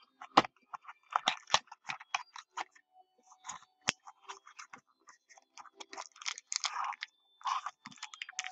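Small cardboard trading-card box being handled and opened: crackling and rustling of cardboard, with a couple of sharp clicks, and denser rustling near the end as the flaps open and the stack of cards slides out.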